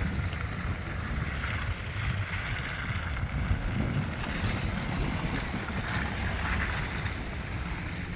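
Wind buffeting the microphone, a steady low rumble with a noisy hiss over it.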